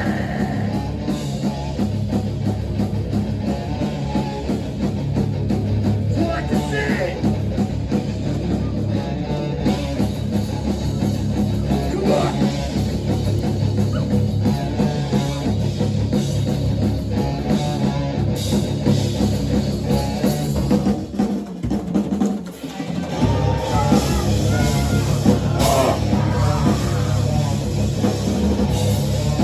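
Live rock band playing loud, with drum kit, guitar and bass. The low end drops out briefly about two-thirds of the way through, then the full band comes back in.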